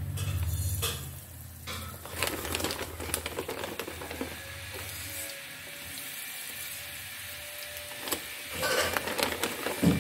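Breaded chicken nuggets shallow-frying in oil in a nonstick pan: a steady sizzle with bursts of crackling and popping, about two seconds in and again near the end.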